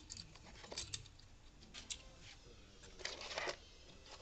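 Faint clicks of small parts being handled at a workbench, with a brief scraping rustle about three seconds in.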